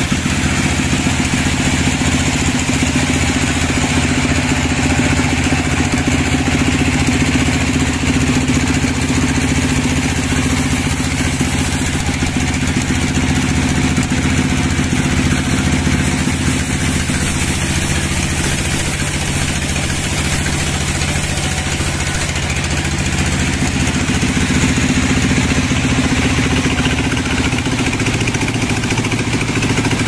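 Sawmill band saw and its drive running steadily with a constant low drone, while a teak slab is fed through the blade.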